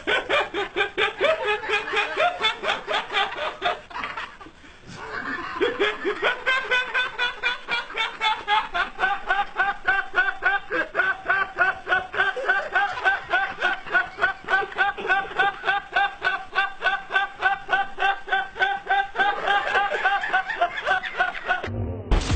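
Long, unbroken laughter in rhythmic pitched ha-ha pulses, about three to four a second, breaking off briefly for a breath about four seconds in.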